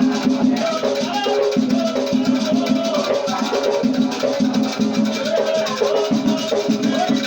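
Batuque ritual music: voices singing a chant over fast, steady shaking of rattles, with some drumming.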